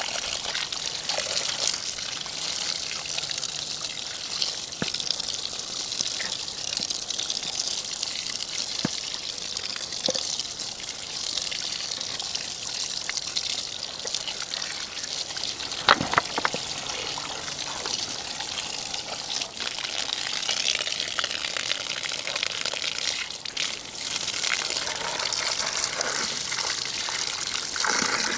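Water running steadily from a hose tap and splashing, with one sharp knock about sixteen seconds in.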